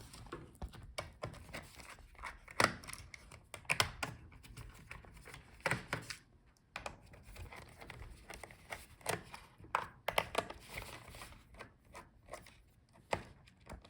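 A small screwdriver backs out the bottom case screws of a laptop, with faint, irregular clicks and taps of the tool and screws on the plastic case.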